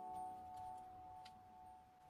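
Background music fading out: a few held notes die away, with one faint tick just over a second in.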